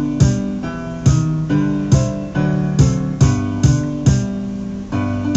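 Piano music: a steady run of struck notes and chords, each dying away before the next.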